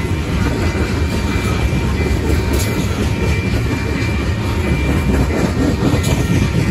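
Train rolling past: a steady, loud rumble of wheels on the rails, with two sharp clicks.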